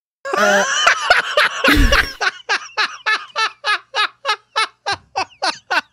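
A man laughing hard. It starts as a dense burst, then runs on as a long string of short "ha" pulses, about four or five a second, each dropping in pitch.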